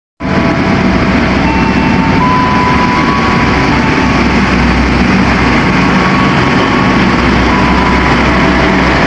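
CC 206 diesel-electric locomotive running as it hauls a passenger train along the platform: a loud, steady engine drone over a low rumble.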